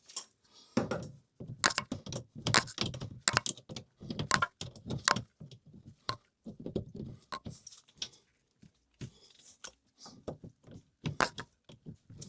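Irregular metallic clinks and rattles of a toilet water supply line and its fittings being handled during its replacement at the angle stop.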